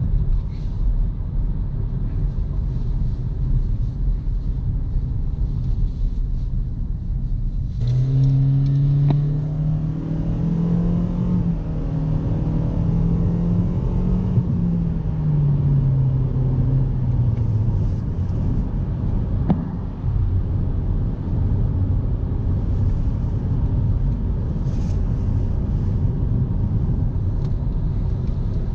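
2018 Toyota Corolla LE driving, with a steady low road-and-tyre rumble. About eight seconds in, the four-cylinder engine note comes in suddenly and climbs in pitch as the car accelerates. It holds for a few seconds, then falls away around eighteen seconds in.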